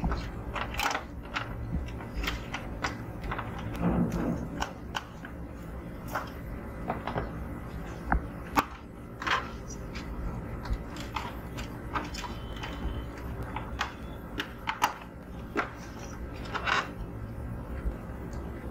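Irregular clicks, taps and knocks from handling a label printer's circuit board and cable connectors, pressing them into place on its metal chassis, over a low steady hum.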